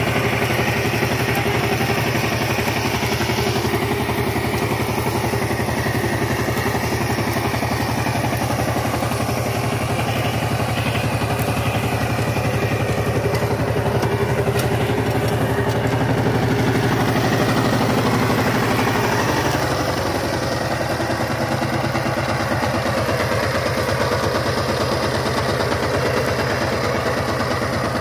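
Power tiller's single-cylinder diesel engine running steadily under load, with an even, rapid chugging beat, as the tiller works through a muddy paddy.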